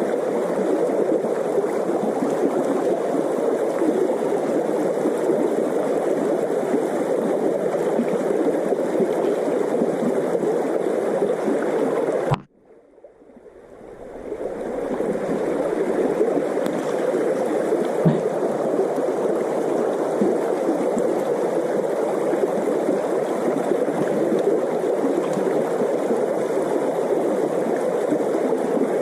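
Steady rushing and babbling of a small river's water flowing over stones close to the microphone. The sound cuts out abruptly about twelve seconds in and swells back up over a couple of seconds.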